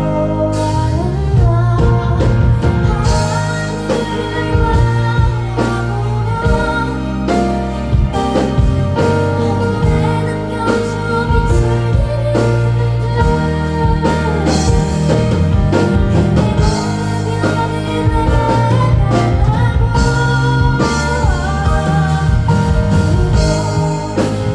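Live band music with a singer's voice: a slow pop song with a steady bass line and drum beats under the melody.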